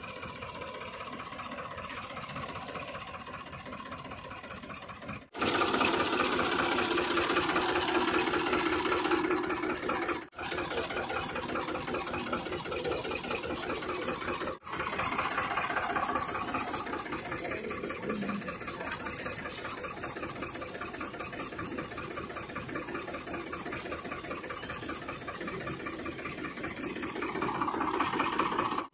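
A diesel engine idling steadily, its level jumping abruptly at a few edit cuts.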